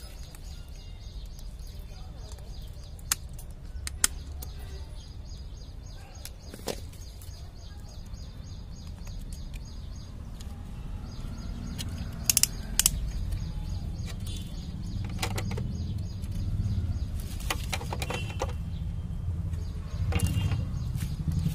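Scattered sharp clicks and light rattles of hard plastic mixer-grinder parts being handled and fitted, including a quick pair of clicks about twelve seconds in, over a steady low background rumble that grows louder toward the end.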